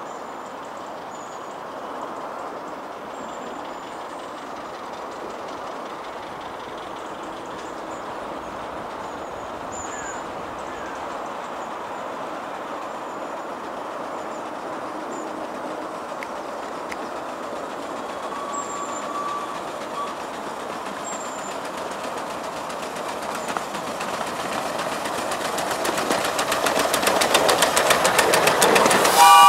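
Live-steam 7¼-inch gauge miniature locomotive hauling passenger cars, running toward and past close by. It gets steadily louder over the last few seconds as it nears.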